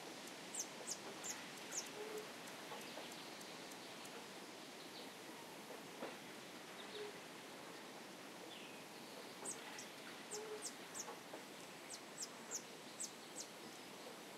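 Faint nature ambience: small birds chirping in quick series of short, high, falling notes, near the start and again through the second half, over a steady hiss. A short low call, like a hoot, comes a few times.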